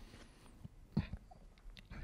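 Quiet room tone with a few faint, soft knocks, the clearest about a second in: footsteps of dress shoes walking across a stage.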